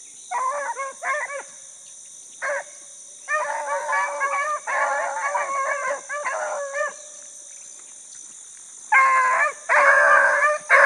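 A pack of rabbit-hunting beagles baying as they run a rabbit's track, several dogs giving voice together in bursts with a pause in the middle, loudest near the end as the pack comes closer.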